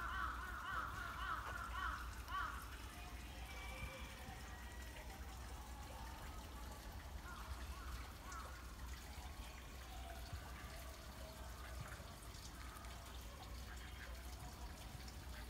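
Water trickling and dripping faintly into a pond, with a bird calling in a quick run of repeated notes over the first two seconds or so.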